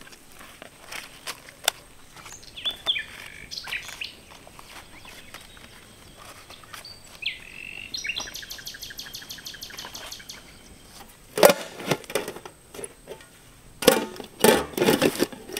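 Birds chirping, with a fast trill of about ten notes a second in the middle. Sharp knocks and rustling of handling come and go, loudest a few seconds before the end.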